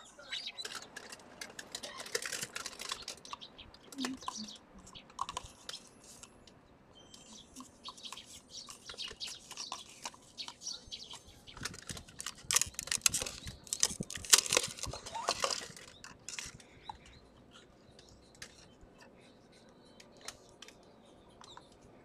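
Eurasian tree sparrows chirping around a seed feeder: many short, high chirps mixed with light clicks. The chirping is busiest about twelve to sixteen seconds in, then thins out.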